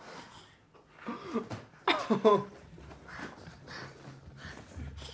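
A person's voice: two short vocal sounds, about a second and two seconds in, with fainter scattered sounds after.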